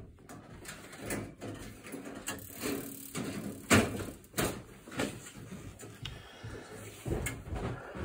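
Sheet-metal front jacket panel of a Burnham Independence steam boiler being handled and worked loose by hand: a string of irregular metal knocks and clunks, the loudest a little before the middle.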